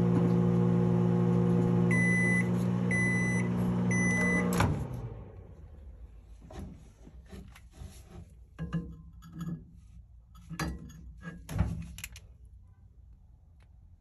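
Samsung microwave oven running with a deep, heavy hum while failing to heat, which the repairer suspects usually points to a faulty magnetron. Three beeps sound about a second apart, then the hum cuts off with a clunk near five seconds in. Scattered clicks and light knocks follow.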